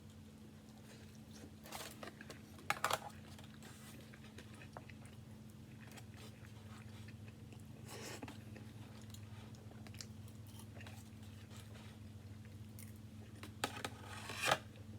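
Close-up chewing and biting of barbecue food, with a few louder crunchy bites around three seconds in and again near the end, over a steady low hum.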